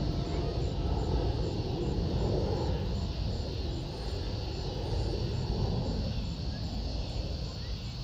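Wind buffeting the microphone: a continuous, uneven low rumble that swells and eases over a few seconds.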